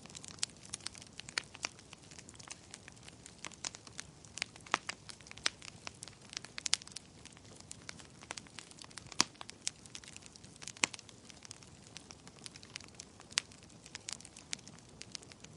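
Fire in a fireplace crackling, with irregular sharp pops and snaps over a low, steady rush of flame.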